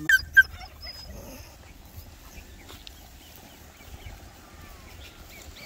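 Two short, sharp animal calls in quick succession at the very start, then faint bird chirps over a quiet outdoor background.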